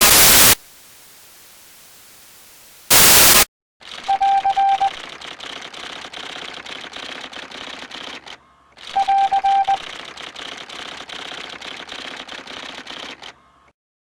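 Two short bursts of loud static hiss, then a long run of fast clicking clatter like typing, with a quick beeping tone twice.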